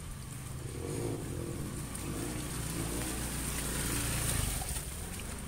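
Motor scooter passing close by through shallow floodwater, its engine growing louder, loudest about four seconds in, then fading.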